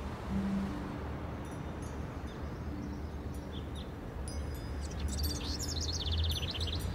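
Soft ambient background track: a steady low drone and hiss with a few sustained low notes, and rapid high bird-like chirps about five seconds in.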